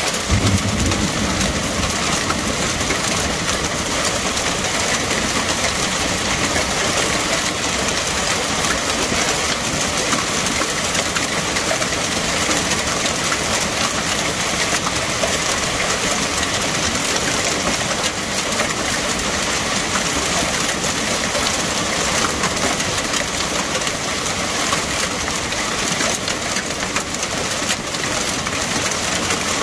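Heavy downpour of rain and hail pelting down, a steady dense hiss of countless impacts, with a brief low rumble in the first second.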